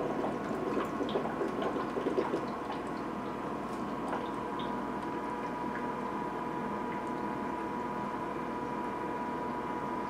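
Small 5-watt DC water pump circulating ice water from a bucket through tubing and a radiator: water trickling and gurgling, with a steady hum. The water sound is a little more uneven for the first two seconds or so, then settles to a steady flow.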